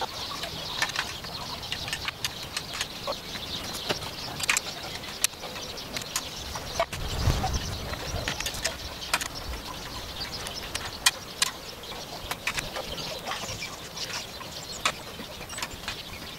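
Irregular light knocks and clicks of hand work on a wooden bench being repaired, with birds chirping in the background.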